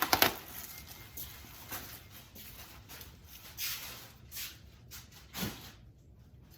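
Camshaft being handled and wiped clean on the bench: a couple of sharp taps at the start, then scattered soft scuffs and rubbing.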